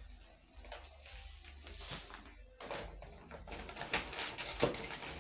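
Shopping bags rustling and crinkling in irregular bursts as hands rummage through them for items, busier in the second half.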